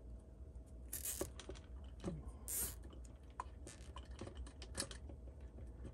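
Small clicks and rustles of hands working a plastic cable tie around wires at the top of a metal lantern, with two short zips about one second and two and a half seconds in as the tie is pulled through.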